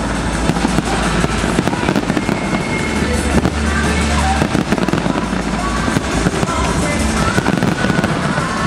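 Fireworks display going off without a break: a dense run of bangs and crackles, with music playing alongside.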